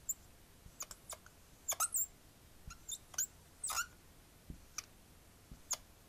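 Dry-erase marker squeaking on a whiteboard: a string of short, high squeaks and ticks as gate symbols and connecting lines are drawn in quick strokes.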